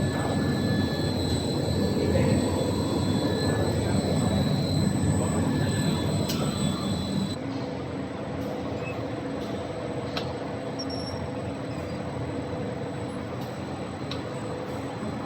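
Pet food extrusion production line machinery running with a steady mechanical noise, dropping a little in level and changing character about seven seconds in.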